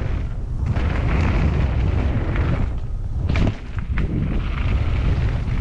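Mountain bike descending a steep, rocky trail: a loud, continuous rumble of wind and tyre noise on the riding microphone, with the bike rattling and knocking over rocks, including a cluster of sharp knocks about three and a half seconds in.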